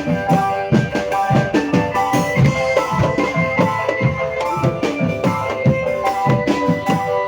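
Music with a busy, steady drum beat under ringing, sustained melodic notes.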